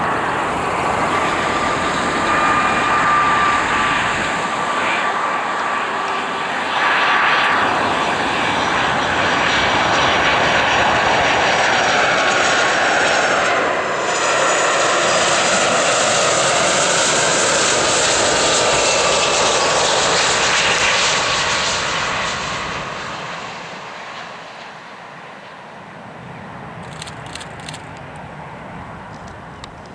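Boeing 757's twin jet engines during landing: a loud jet rumble with a steady whine, which dies away over the last several seconds.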